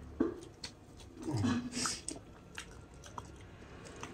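Close-up mouth sounds of a man biting and chewing pork, with wet smacking clicks, and one louder mouth noise about a second and a half in.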